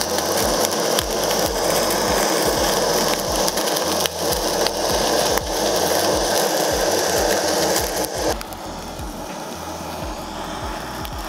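Kitchen blowtorch flame hissing steadily as it sears scallops. The hiss drops in level about eight seconds in.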